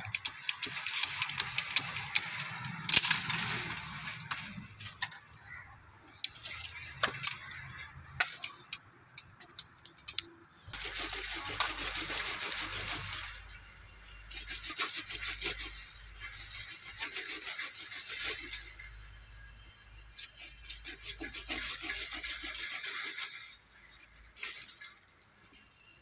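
Leafy branches of a young almond tree rustling, cracking and snapping as they are bent and cut away in pruning. The sound comes in several spells of a couple of seconds each, with sharp cracks among the leaf noise.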